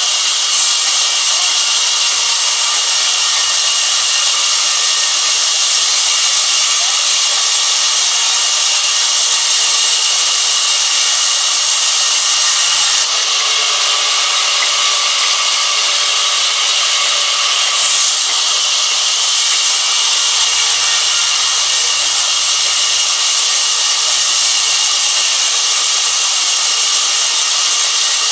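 Large sawmill band saw ripping a long timber block lengthwise: a loud, steady hiss of the blade cutting through the wood over the running machine.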